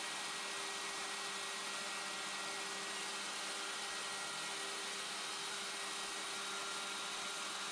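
CNC router spindle running steadily while the machine mills a part: a constant whine over an even rushing noise, with no change in pitch or level.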